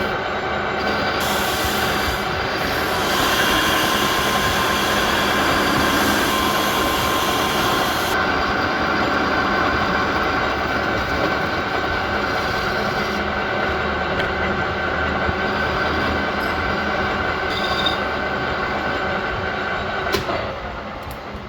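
A machine running steadily and loudly, a dense rattling noise with several steady tones through it, which cuts off about twenty seconds in.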